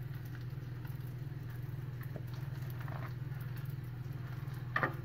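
Knife slicing through a crisp, sauce-glazed bacon-wrapped chicken breast on a wooden cutting board: faint crackling and scraping, with a short knock near the end, over a steady low hum.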